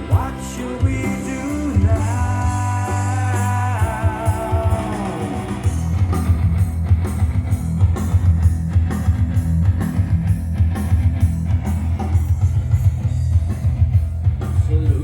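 Progressive rock played back through a JLH 1969 amplifier and loudspeakers. A held, wavering melody over bass opens it, and about six seconds in a steady driving beat with heavy bass takes over.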